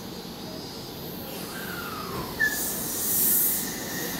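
Odakyu 3000-series electric train pulling away from a standstill. About two and a half seconds in, a sharp high tone sets in and carries on as a steady high motor whine. Just after it comes a loud hiss of air as the brakes release.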